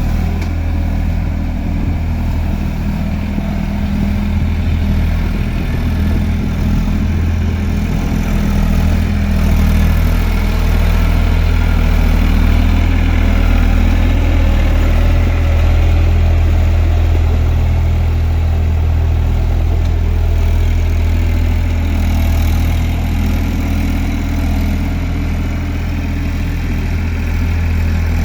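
Eicher tractor's diesel engine running steadily at working speed while ploughing, a deep low engine note that grows a little louder in the middle and eases again near the end.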